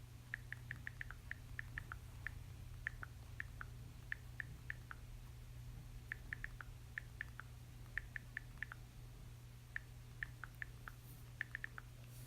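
iPhone on-screen keyboard clicks as a message is typed: short, light ticks in quick clusters of a few taps with brief pauses between words, over a faint steady low hum.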